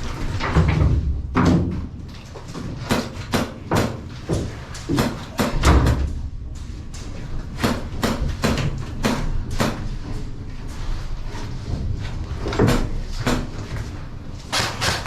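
A string of irregular sharp clicks and knocks, with heavier low thumps about a second in and again near six seconds in.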